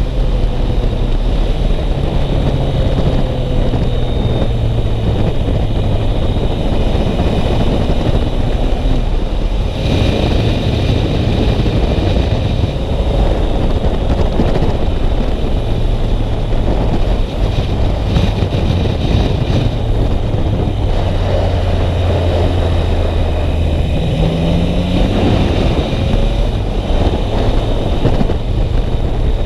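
Onboard sound of a Yamaha MT-09 three-cylinder motorcycle being ridden, its engine running steadily under heavy wind noise on the microphone. Late on, the engine note rises briefly.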